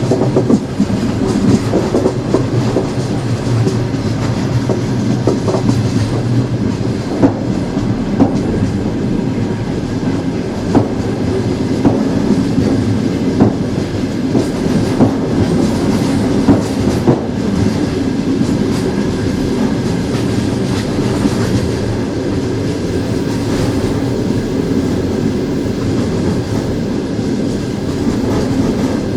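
Train wheels rolling on the rails: a steady low rumble with frequent irregular clicks and knocks from the wheels over the track.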